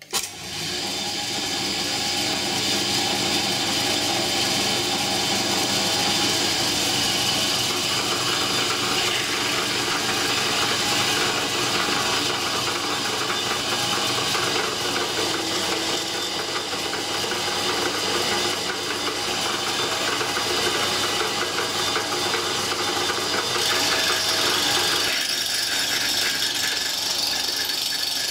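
Pillar drill running, its twist bit cutting a pilot hole into a clamped metal workpiece: a steady machine whir with a hiss of cutting. The sound thins and the low hum drops out near the end.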